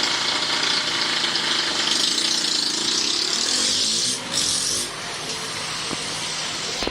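Workshop machinery running steadily with a hissing, mechanical noise. The sound dips and changes about four seconds in.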